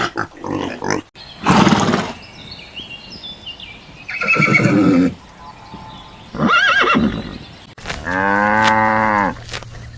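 A run of farm animal calls: three short calls, then one long drawn-out pitched call about eight seconds in.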